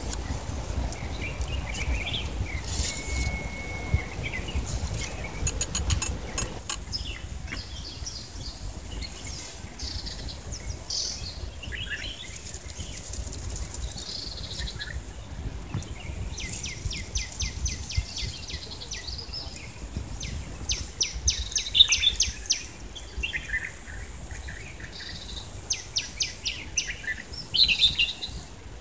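Songbirds chirping and calling on and off, with several quick trills of rapidly repeated high notes in the second half.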